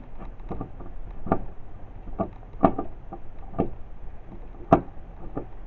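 Screwdriver turning a small screw out of a plastic battery box, making a series of irregular clicks and creaks spaced about half a second to a second apart, two of them sharper than the rest.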